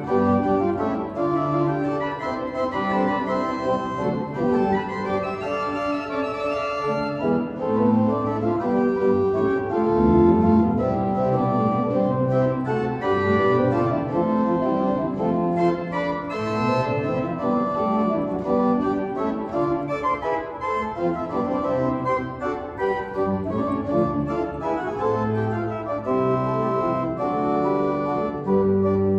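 Cathedral pipe organ playing a busy contrapuntal passage, several lines of sustained notes changing throughout at a steady, full level.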